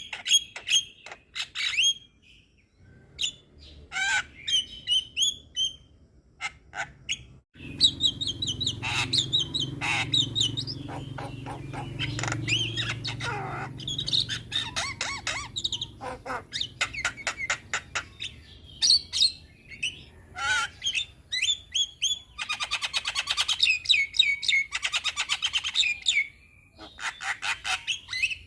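Javan myna (jalak kebo) singing a varied, chattering song of rapid trills, sweeping whistles and harsh squawks, in phrases broken by short pauses. A low rumble runs underneath through the first half.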